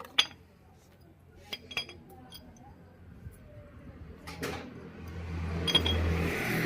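Light metallic clinks of tools and brake parts being handled, a few sharp ones early on and more about a second and a half in; over the last two seconds a low engine hum swells up.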